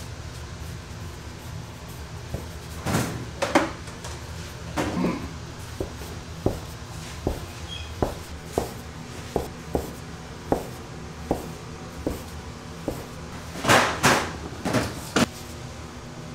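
A metal bench scraper chops through a rolled log of cinnamon-roll dough, and each cut ends in a sharp knock on the floured wooden board, roughly one or two a second. There are a few heavier thumps near the start and near the end as the dough is handled and the pieces are set down, over a steady low hum.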